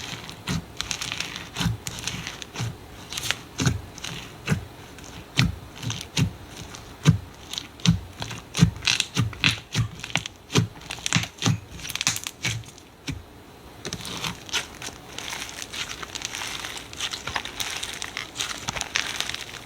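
Slime being squeezed and pressed by hand, making quick, irregular pops and crackles with soft low thuds.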